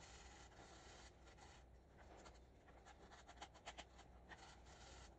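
Hand sanding a wooden chair post with a loose sanding disc: faint scratchy rubbing strokes, with a run of short, quick strokes a little past halfway.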